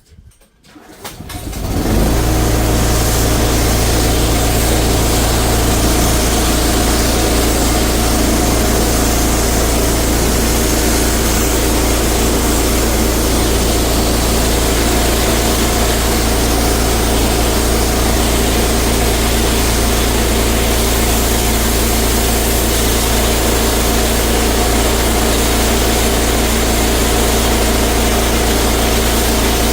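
A pressure washer's engine comes up to speed about two seconds in and then runs steadily at full throttle under a loud, even hiss of spray.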